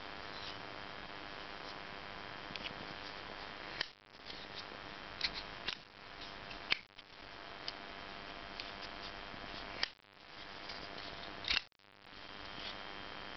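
Kershaw Echelon 1880 folding knife being handled and worked: a scattered series of sharp metallic clicks from its blade and lock, over a steady faint hiss.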